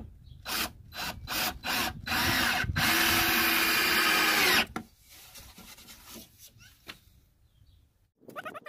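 Power drill driving a wood screw through a wooden seat slat into the frame: a few short bursts, then one continuous run of about two and a half seconds that stops abruptly.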